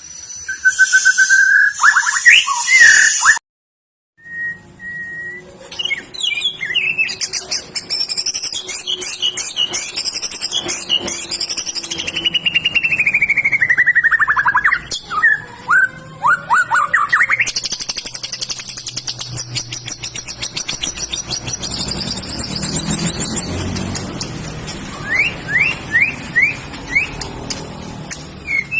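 White-rumped shama (murai batu) singing a long, unbroken rolling song of rapid trills and clear whistles, with falling whistled glides partway through. The song cuts out suddenly about four seconds in and resumes within a second.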